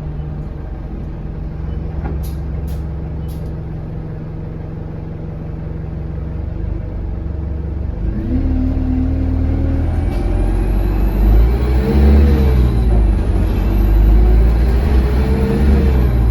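Euro 6 Alexander Dennis Enviro200 bus engine running steadily, then pulling away about eight seconds in. It revs up and drops back twice as the gearbox changes up, with a high turbo whistle rising and falling along with it, which the uploader puts down to a turbo leak.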